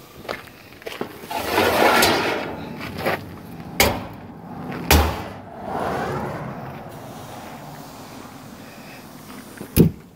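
Metal parts of a steel cabinet smoker being worked: scraping as the pans slide, two sharp metal clanks in the middle, and a loud sharp clack of the door latch near the end.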